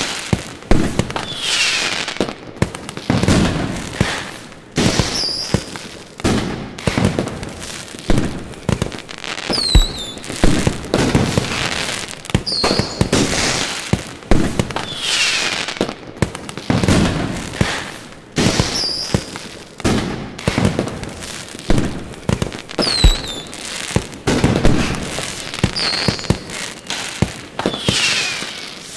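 Fireworks display: a continuous run of loud bursts about every one to two seconds. Short falling whistles sound every few seconds between them.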